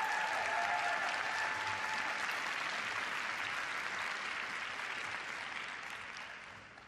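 Applause from a small, scattered arena audience greeting a skater's announcement, swelling quickly at first and dying away over the last couple of seconds.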